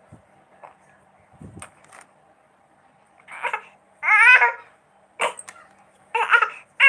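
An infant babbling in short, wavering vocal sounds in the second half, the loudest about four seconds in, with a sharp tap or click just after five seconds.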